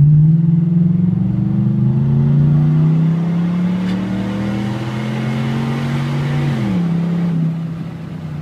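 A 2013 Ford F-150's 5.0 V8 accelerating through a Flowmaster 40 Series muffler, with the resonator deleted and a 3-inch straight pipe dumping before the axle. The exhaust note climbs in pitch, steps down at a gear change about a second and a half in, and climbs again. About seven seconds in the pitch drops sharply and then holds steady. It is heard from inside the cab with the windows down.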